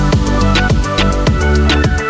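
Upbeat electronic background music with a steady drum beat and sustained synth notes.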